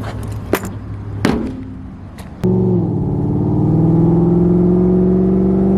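Pontiac Firebird Trans Am's LS1 V8 running at a low steady note with a few clicks and knocks. About two and a half seconds in, it opens up suddenly into a loud, steady pull as the car accelerates away.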